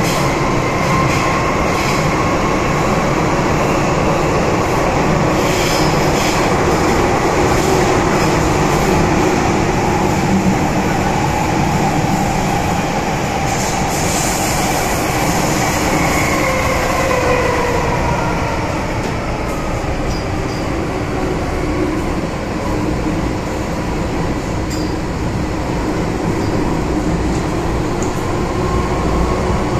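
MTR Kwun Tong Line M-Train running: a steady rumble with faint whining tones that shift in pitch, one of them falling around halfway through.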